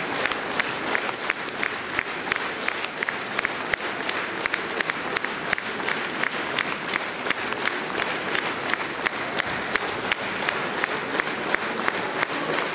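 Theatre audience applauding steadily, with sharp claps standing out in a regular beat of about three a second.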